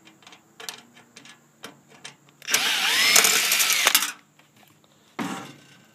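Power drill running for about a second and a half as it backs out the mounting screw of a microwave's high-voltage capacitor; its motor whine rises and then falls. Light clicks of the bit on the screw come before it.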